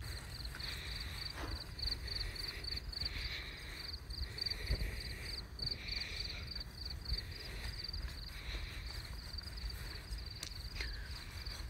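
Crickets chirping at night in a fast, even pulse of about five chirps a second, with a low rumble underneath.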